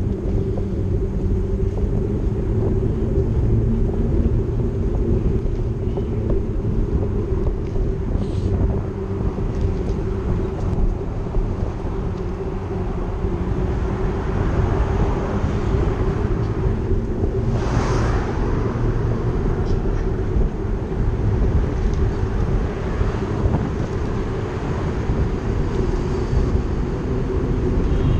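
Steady low rumble of travel, with wind noise on the microphone and a brief hiss about two-thirds of the way through.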